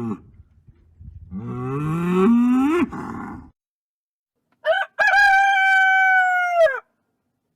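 A cow mooing in one low call that rises in pitch, then a rooster crowing: a short note and a long held note that drops off at the end.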